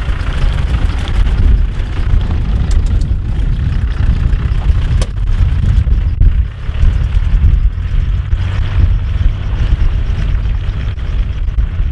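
Land Rover Discovery engine running as the vehicle drives past through a wet, muddy rut, mixed with heavy wind buffeting on the microphone that makes a constant deep rumble.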